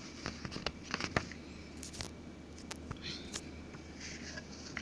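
Paper CD booklet being handled and its pages flipped: rustling with a scatter of small clicks and taps, thickest about a second in and again around three seconds in.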